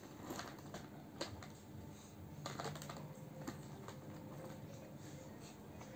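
Hard plastic toy cars and trucks being handled and pushed about, giving faint, irregular clicks and taps.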